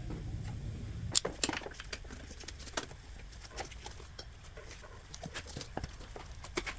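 Irregular light clicks and knocks of a tool and hands working the serpentine belt tensioner and slipping the belt under the idler pulley, the sharpest knock about a second in.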